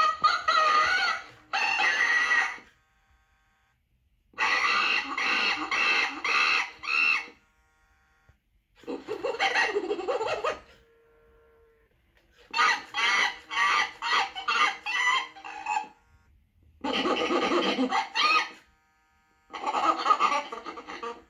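WowWee Alive Chimpanzee animatronic toy playing its recorded chimpanzee calls through its small built-in speaker: repeated bursts of rapid, pulsed hooting and laughing, each one to three seconds long, with short quiet gaps between.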